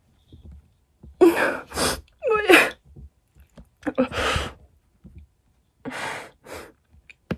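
A young woman's sharp, breathy gasps and exhales, about six of them in short bursts, with her hand over her mouth. One, near the middle, carries a brief falling voiced catch. They are the breathing of someone overwhelmed, whose hands are trembling.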